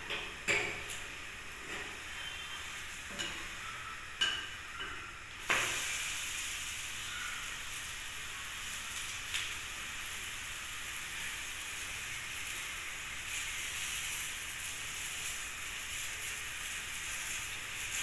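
A protein pancake sizzles in a small non-stick frying pan on a gas burner, with a few light taps and scrapes of a silicone spatula in the first few seconds. About five and a half seconds in comes a sharp slap as the pancake is flipped, and after it the sizzling is louder and steady.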